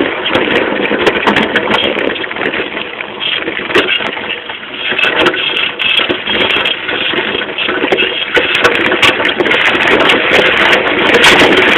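Saltafoss bicycle fitted with hydraulic motocross rear shock absorbers, being ridden over rough ground and heard from a camera fixed to the frame: a continuous rattling, rumbling noise with many small knocks as the wheel and suspension take the bumps.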